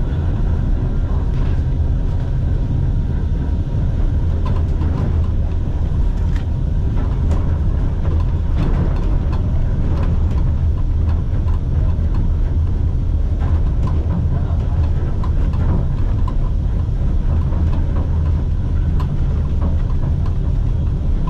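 Vintage museum tram running along the track: a steady low rumble with faint scattered clicks.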